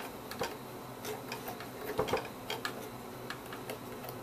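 Light, irregular clicks and taps as fingers work a small rubber drive belt onto the plastic pulleys and gears of a GAF Super 8 movie projector's mechanism.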